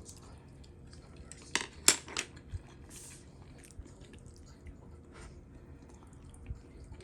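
Dishes and cutlery clinking: a quick cluster of sharp clinks about a second and a half in, then light scattered taps and clicks.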